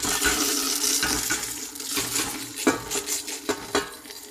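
Elderberries poured into a stainless steel pot, rattling on the metal bottom and the cinnamon sticks: a dense pouring rattle for about two seconds, then scattered clicks as the last berries drop.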